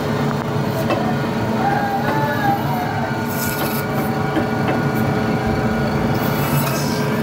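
Electric band saw running steadily as it cuts through a grass carp. Twice, at about three seconds and again near six, a hissing rasp rises over the motor hum as the blade bites through scales and bone.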